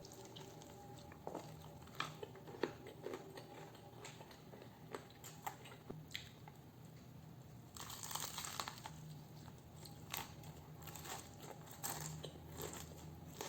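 Close-miked chewing and biting of sauce-coated fried chicken: scattered soft crunches and wet mouth clicks, with a denser stretch of crunching about eight seconds in.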